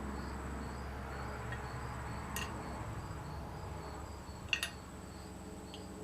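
A cricket chirping steadily at about three chirps a second over a low room hum, with a few light clicks about two and a half and four and a half seconds in.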